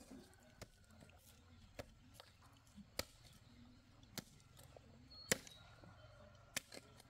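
Sharp single knocks struck at a steady pace, about one every second and a bit, six in all, like chopping strokes; the fourth from last, about five seconds in, is the loudest.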